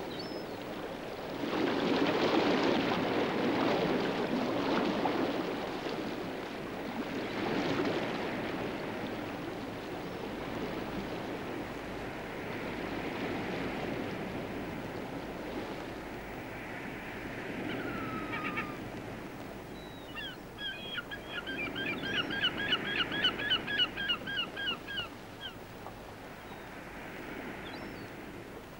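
Surf washing against a rocky shore, rising and falling. Near the end, a bird calls in a fast run of about a dozen short, repeated notes lasting some four seconds.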